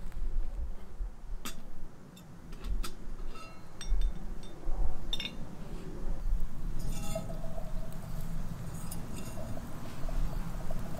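Footsteps through grass, then a few sharp metal clinks as a camp kettle hanging over a campfire is handled.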